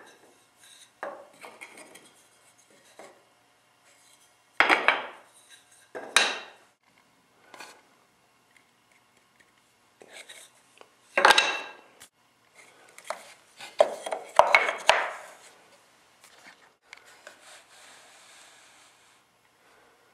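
Wooden pieces and tools being handled and set down: a series of short knocks and clatters with some rubbing and sliding in between, the loudest about five, eleven and fifteen seconds in.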